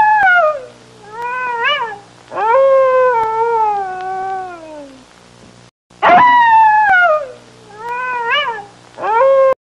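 Fox calling with high, wailing cries that slide down in pitch: a loud falling cry, a short rising-and-falling cry, then a long slowly falling wail. The same run of cries plays twice.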